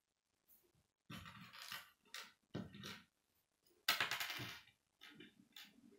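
Small plastic K'nex pieces clicking and rattling in a few short bursts as they are handled and snapped together, the loudest about four seconds in.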